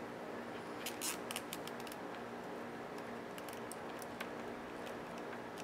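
Scattered light clicks and ticks of small tools and parts being handled during work on a cassette deck's wiring, over a steady low hum.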